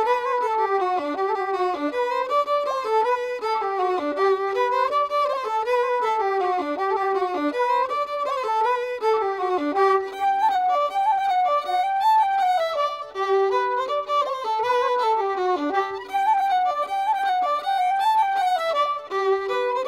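Lively traditional dance tune played on fiddle, a quick melody of running notes.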